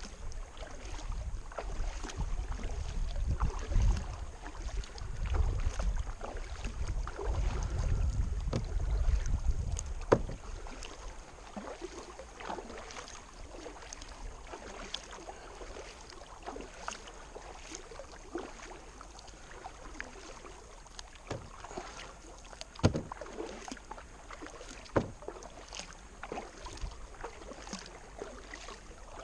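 Kayak being paddled: paddle splashes and water dripping with scattered clicks and a few sharp knocks. Wind rumbles on the microphone for about the first ten seconds.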